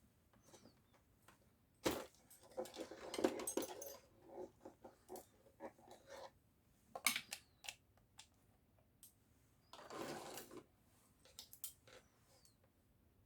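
Handling noise from bench work: scattered clicks, taps and scrapes of small hard parts and tools, with longer rattling, scraping stretches about two to four seconds in and again around ten seconds in.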